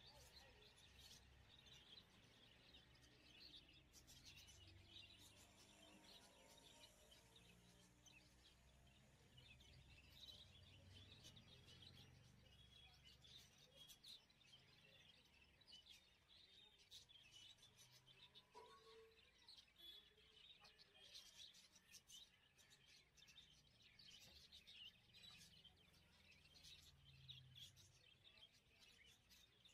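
Near silence: faint room tone with small birds chirping now and then in the background.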